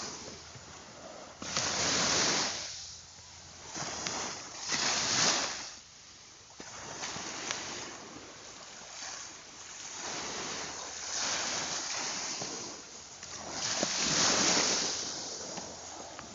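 Ocean waves surging and washing in, the rush of water swelling and falling every few seconds.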